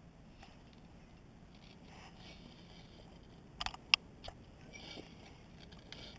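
Quiet handling of fly line near the reel, with light rustling and a few short, sharp clicks, the loudest about four seconds in.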